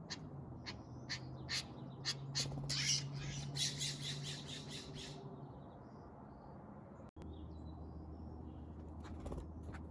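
Scrub jay giving a series of harsh squawking calls that speed up into a rapid run in the middle. After a sudden break a few faint short chirps follow.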